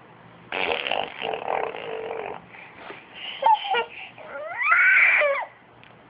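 A young child making funny vocal noises: a rough buzzing noise for about two seconds, then short squeals whose pitch bends up and down.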